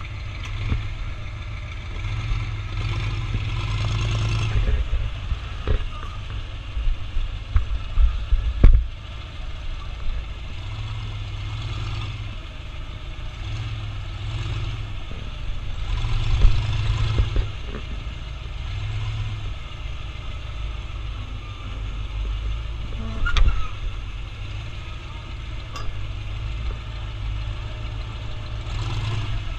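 Off-road vehicle's engine running with a low rumble that swells several times as it is revved. A few sharp knocks and bumps come through, the loudest about 9 seconds in and again near 23 seconds.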